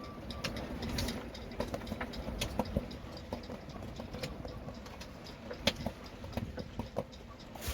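Gusty wind rumbling on the microphone, with many irregular clicks and light rattles through it.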